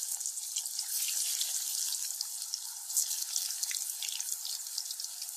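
Cabbage kola urundai (cabbage fritter balls) deep-frying in hot oil in a kadai: a steady sizzle full of small crackling pops.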